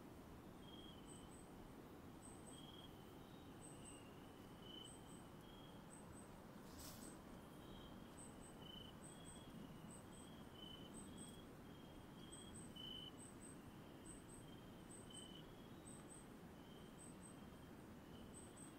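Faint night chorus of insects and frogs in the cloud forest. Short high double chirps repeat about once a second over scattered lower single chirps from several callers at slightly different pitches, with a brief rustle about seven seconds in.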